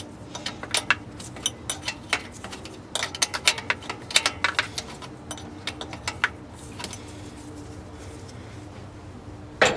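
Hand tools working on an engine: irregular light metallic clicks and clinks, clustered in quick runs, thinning out after about six and a half seconds, over a faint steady hum.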